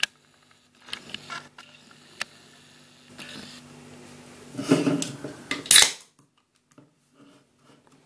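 A can of Holsten Pils lager is handled with a few light knocks, then its ring-pull tab is cracked open about five seconds in: a sharp metallic snap with a short hiss of escaping gas.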